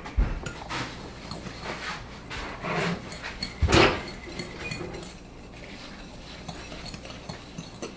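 A fork clinking and scraping against a glass mixing bowl while a crumb mixture is stirred: a run of light clicks, one louder knock a little under four seconds in, then softer mixing.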